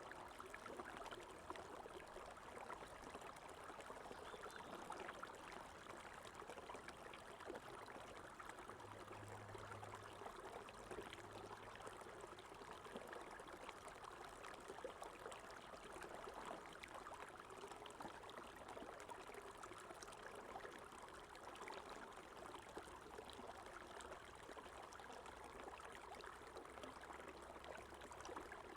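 Faint running water: a natural stream flowing and trickling steadily.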